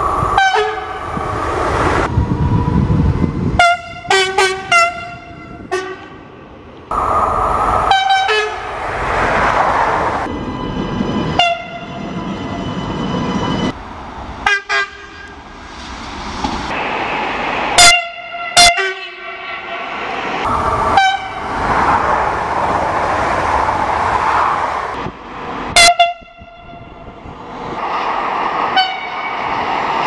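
Passing trains sounding many short horn blasts, several in quick succession in places, with the rushing noise of the trains between them. The background changes abruptly several times where separate recordings are cut together.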